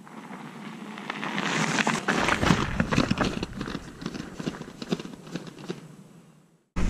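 Fat 29+ tyres of a loaded Trek 1120 bike rolling past on a dirt trail, crunching and crackling over dirt, rocks and pine needles. The sound grows as the bike nears, is loudest about two seconds in as it passes, and fades away as it rides off.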